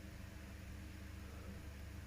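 Faint steady hiss with a low hum underneath: quiet workshop room tone, with no distinct tool sound.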